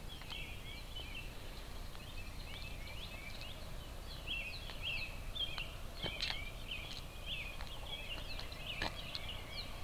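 Songbirds chirping: a continuous run of short, quick chirps over a low, steady background rumble.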